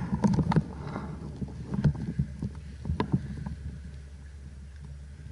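Scattered short knocks and rustles over a steady low rumble: handling and movement noise picked up by a body-worn action camera.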